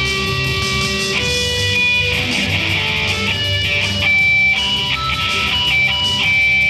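Electric guitar played through a Marshall amplifier stack: a melody of picked single notes, some held for a second or more.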